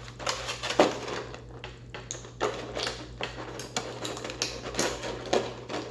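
Plastic toy packaging being handled and pried open: irregular crinkles and clicks, with a sharper snap a little under a second in, over a steady low hum.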